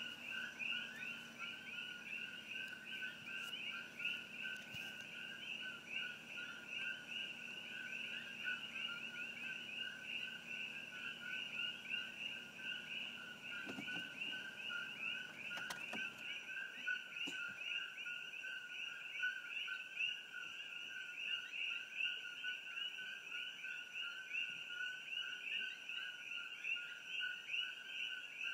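Chorus of many coqui frogs calling over one another: a dense, unbroken stream of two-note "co-qui" calls.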